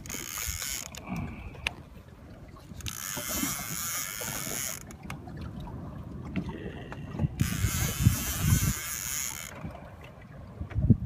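Conventional fishing reel being cranked under the heavy load of a hooked sturgeon, its gears whirring and rasping in bursts of about two seconds. There are two such bursts with pauses between them as the rod is pumped.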